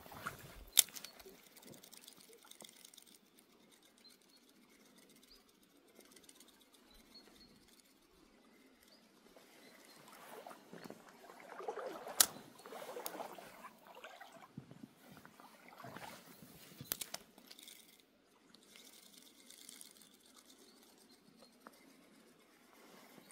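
Shallow stream trickling over stones. Scattered crunching or rustling is heard, with a few sharp clicks, the loudest about halfway through.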